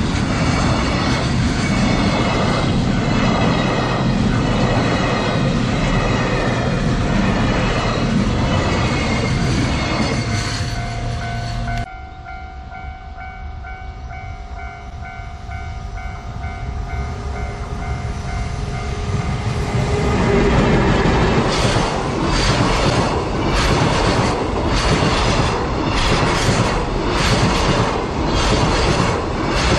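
Electric train running over a level crossing, its wheels clattering over rail joints in an even beat; the sound cuts off suddenly about twelve seconds in. Then a level-crossing warning bell rings steadily at a lower level while another train approaches and passes with the same rhythmic wheel clatter.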